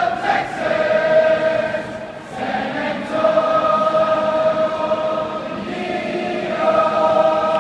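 A large group of voices singing slowly together in long held notes, like a team and crowd singing a school song. The singing dips briefly about two seconds in, then carries on.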